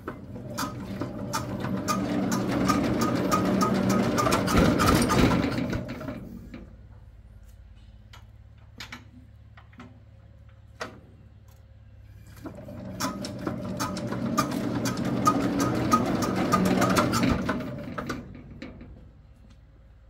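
A walking tractor's single-cylinder diesel engine being hand-cranked twice, each time spun up into a fast, rattling run of strokes for about five seconds before slowing and dying away. It does not catch, as fits an engine that won't start.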